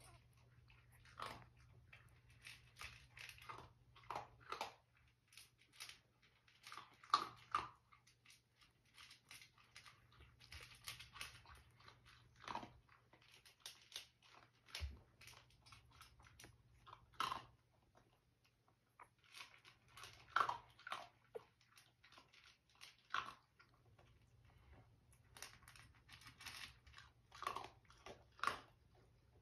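Two-week-old dachshund puppies making faint squeaks and wet mouth-smacking noises in short, scattered bursts, some squeaks dropping in pitch.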